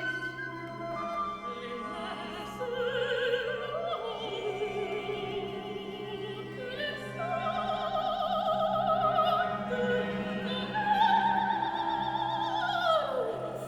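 Classical music: an operatic voice holding long notes with vibrato over an orchestra, one note sliding down near the end.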